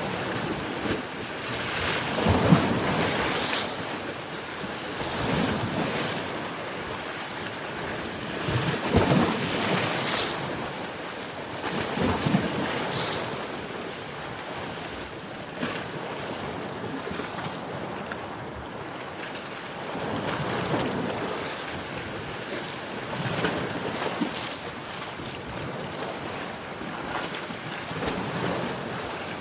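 Sea surf: waves breaking and washing onto the shore, swelling every few seconds, with the strongest breaks about 2.5, 9 and 12 seconds in.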